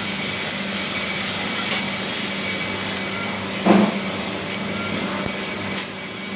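Steady machinery hum with a constant low tone under a noisy hiss, broken by one sharp knock about two-thirds of the way through and a few faint clicks.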